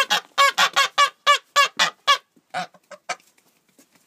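Grey domestic geese honking in a rapid run of short calls, about four a second, tailing off into a few softer calls about three seconds in.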